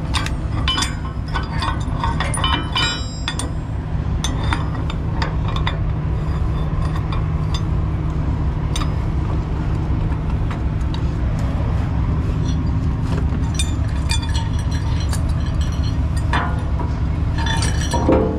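Steel tie-down chains clinking and rattling against the tie-down lugs of a Cat 730 articulated dump truck as they are handled, in irregular clinks that come thicker in the first few seconds and again near the end. An engine idles steadily underneath.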